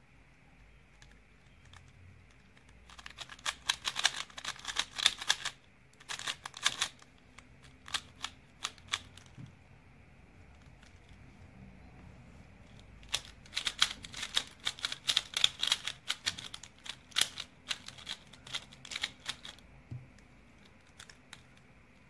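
Plastic layers of a 3x3 speedcube clacking as they are turned fast by hand during a solve, in two runs of rapid turns, the second starting about halfway through.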